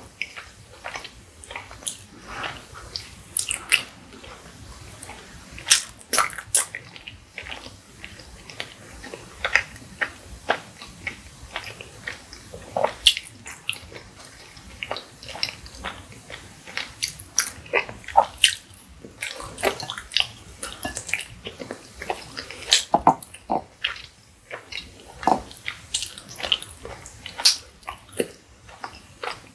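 Close-up mouth sounds of a person eating: wet chewing and smacking, with many short sharp clicks at irregular intervals.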